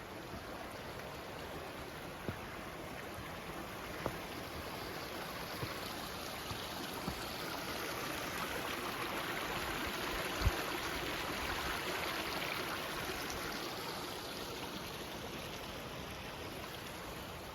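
Rushing water of a mountain stream, a steady hiss that swells louder around the middle and eases again. A few faint knocks and one low thump about ten seconds in.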